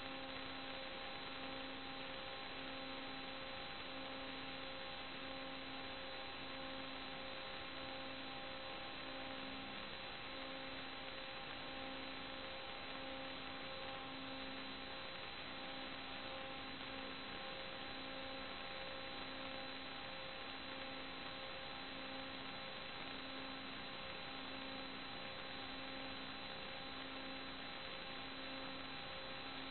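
Steady electrical hum and hiss from the recording system, with several constant tones and a low tone pulsing on and off in a regular rhythm.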